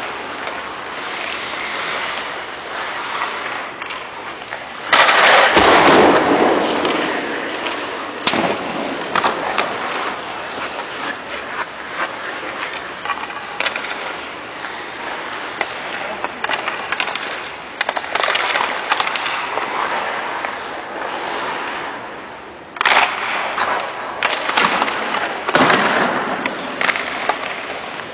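Ice hockey skates scraping and carving on rink ice, with scattered sharp clacks of stick and puck. Two sudden loud scrapes stand out, about five seconds in and again near twenty-three seconds.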